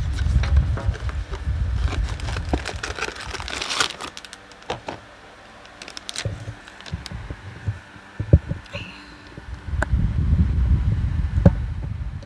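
Close handling noise as a cardboard box and plastic bag of hotcake mix are moved right by the microphone: rustling with low thuds and rumbling, a few sharp knocks in the middle, then more rumbling near the end.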